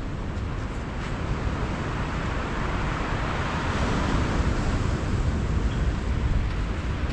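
Strong storm wind buffeting the microphone with a constant low rumble, over the hiss of breaking sea waves that swells a few seconds in.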